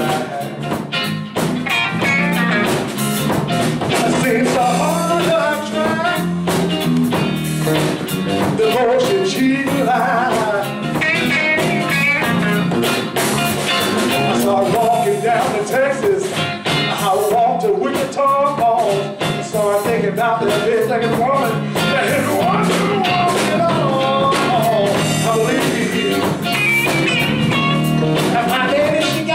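Live electric blues band playing: a lead electric guitar line with bent, wavering notes over bass guitar and a drum kit keeping a steady beat.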